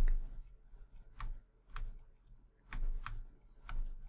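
About five sharp, irregularly spaced clicks from computer controls as the on-screen instructions are zoomed out and scrolled, over a steady low hum.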